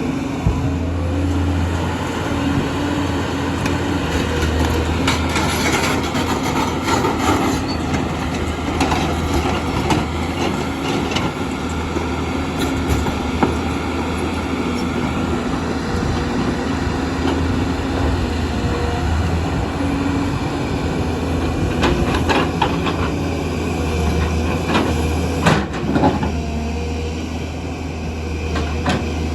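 JCB excavator's diesel engine running steadily under load, with scattered clanks and knocks of the bucket against rock as it breaks big stones; the knocks bunch together twice, about six seconds in and again near the end.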